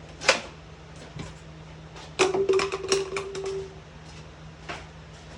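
Caulking gun being worked to dispense construction adhesive: a sharp click, then about two seconds in a quick run of clicks and knocks over a second and a half with a steady squeak under them, and one more click near the end. A low steady hum runs underneath.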